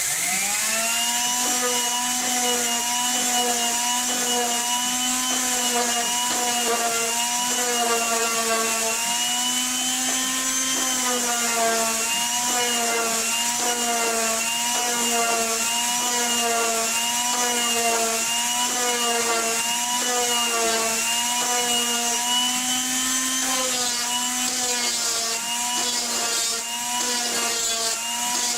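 Electric wood router starting up with a rising whine, then running steadily while cutting along a wood edge, its pitch wavering slightly with the load.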